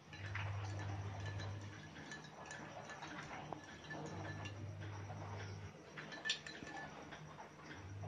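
A metal spoon clinking faintly against a drinking glass as a drink is stirred. A low hum starts and stops three times in the background.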